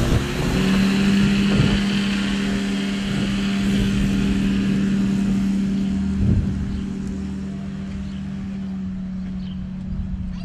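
Kolb ultralight aircraft's engine and propeller running at full takeoff power, a steady drone that fades gradually after about six seconds as the plane moves away and climbs.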